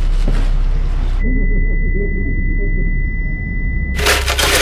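Muffled ambience with a steady high ringing tone, a simulated hearing-loss effect. For about the first second the full, clear noise of the room is heard; it then cuts off suddenly, leaving only the dull low sound and the ringing. A few seconds later, a loud full-range clattering, grinding noise starts abruptly.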